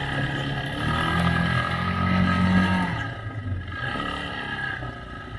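ATV (quad bike) engine running and revving up, rising in pitch and getting louder for about two seconds. It then drops back to a quieter, lower running sound.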